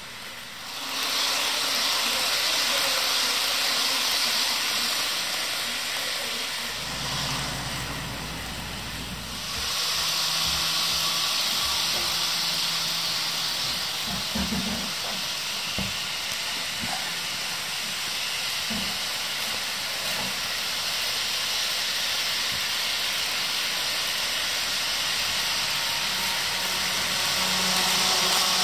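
HO scale model trains running on track: a steady hiss of wheels and motors that swells about a second in, eases briefly around the middle, then carries on, with a faint low hum underneath.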